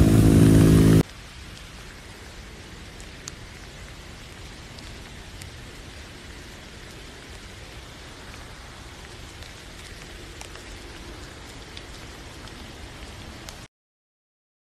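Music for about the first second, then rain falling: a steady patter with scattered single drops ticking. The sound cuts off abruptly about a second before the end.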